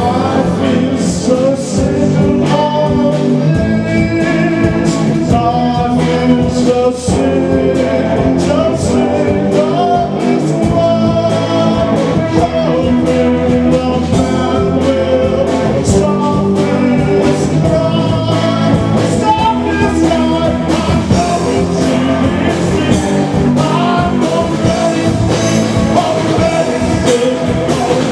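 Live rock band playing: a man sings over electric guitars and a drum kit.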